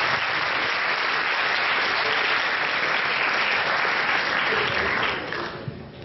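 Audience applauding, steady and then dying away about five seconds in.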